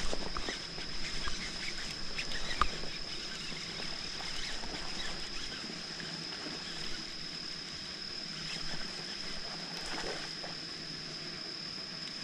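13 Fishing Origin FB casting reel being cranked during a topwater retrieve: irregular clicks and rattles, sharpest about two and a half seconds in, then a softer steady whirr. A steady high-pitched whine lies underneath.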